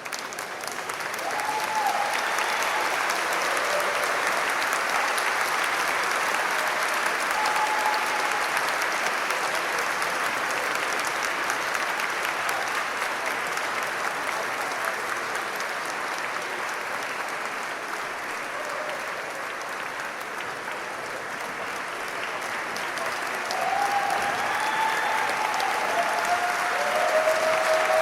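A large audience applauding continuously, swelling up over the first couple of seconds, easing slightly past the middle and building again toward the end, with a few voices calling out over the clapping near the end.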